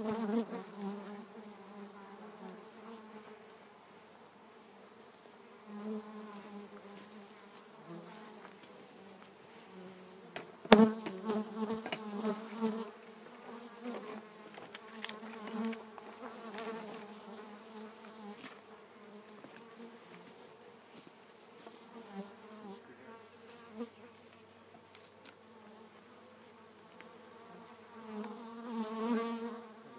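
Mass of honeybees from a shipped bee package buzzing in a steady hum that swells and fades. A sharp knock comes about eleven seconds in, followed by a spell of louder buzzing.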